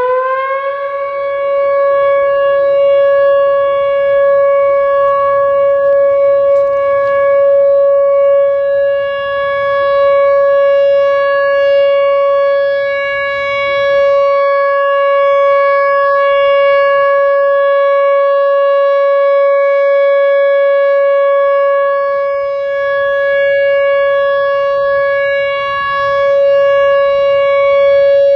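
Whelen Vortex R4 rotating outdoor warning siren sounding its steady full-alert tone. It finishes winding up in the first second, then holds one loud steady note with strong overtones, the level slowly swelling and dipping as the siren head rotates.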